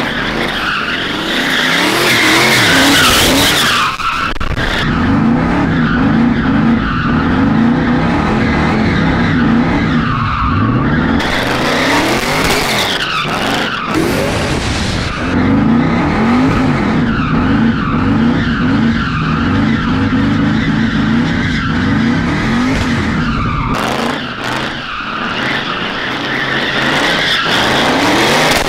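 Twin-turbo LS V8 in a Fox-body Mustang drift car, revving hard with its pitch climbing and falling again and again, while the tyres skid and squeal. It eases off briefly a few times along the way.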